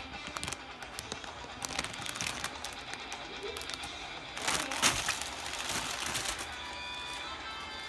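Plastic packaging and kit parts being handled: crinkling, with scattered light clicks and a louder rustle about halfway through.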